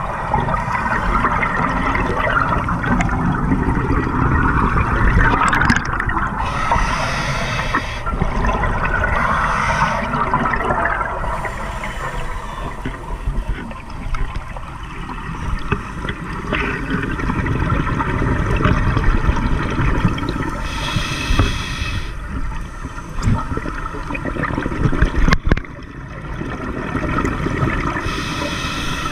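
Scuba regulator breathing heard underwater: the continuous bubbling rush of exhaled air, with a few short hissing breaths through the regulator.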